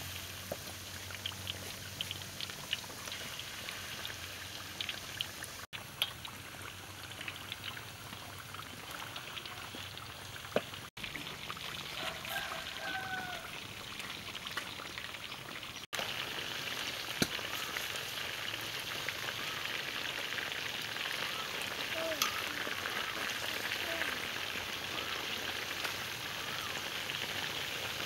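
Chicken wings deep-frying in hot oil: a dense crackling sizzle with many small pops. It cuts out for an instant three times and is a little louder over the last third.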